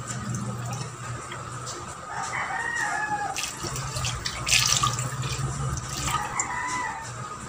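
Water poured from a glass into a stainless steel pot of fish pieces in a sink, splashing unevenly, loudest about halfway through. Two drawn-out pitched calls sound in the background, one a little over two seconds in and one near the end.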